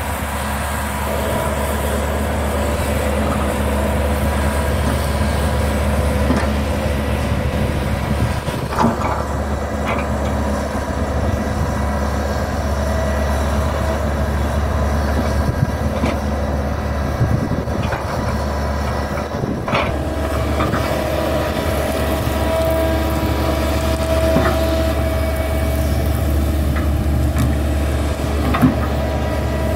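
Hitachi hydraulic excavator's diesel engine running steadily as it digs and moves soil, with a few short knocks and clunks. A higher steady tone comes in about two-thirds of the way through.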